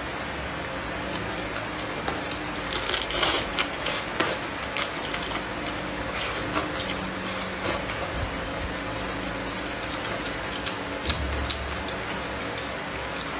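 A person eating with chopsticks: small scattered clicks and crackles of chewing and of chopsticks against the plate, over a steady background hiss with a faint hum.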